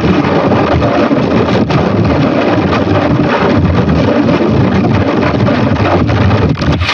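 Loud, harsh, distorted logo-edit audio: a dense, noisy roar with crackle and no clear tune or voice, steady throughout.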